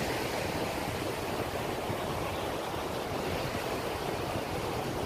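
Sea surf washing steadily onto a sandy beach.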